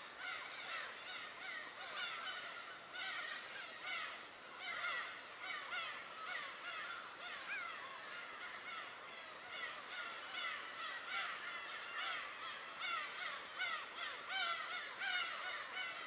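A large flock of birds calling over one another without pause: a dense chorus of short, overlapping calls, many of them sliding down in pitch.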